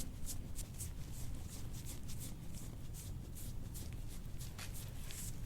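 Metal soft-tissue scraping tool stroked quickly and repeatedly over skin, about three short scraping strokes a second, to break up adhesions.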